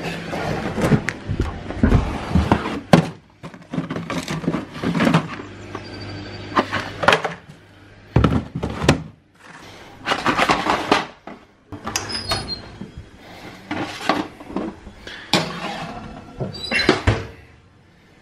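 Kitchen handling noise: a string of knocks and clatters with bursts of rustling, as a cardboard box of vegetarian sausages and a metal baking tray are handled by the stove.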